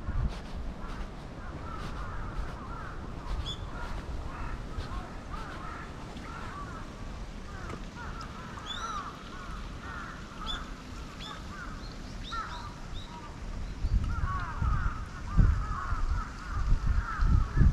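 Many birds calling outdoors, dense overlapping short calls with a few higher chirps now and then. Near the end, loud low thumps and rumble come in.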